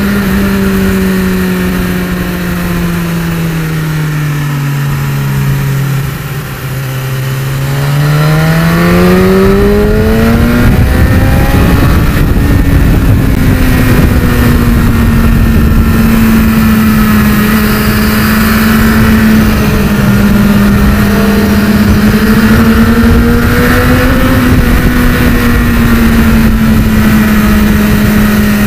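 Sport motorcycle engine under way in third gear, heard onboard over a steady rush of noise. The engine note falls for a few seconds, then climbs back, and holds high and steady with small rises and falls, following road speed with no gear changes.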